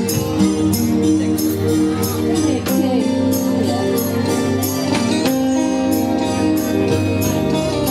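Live band music through a PA: held electric keyboard chords over a steady beat, with bright jingling percussion strokes about two to three times a second.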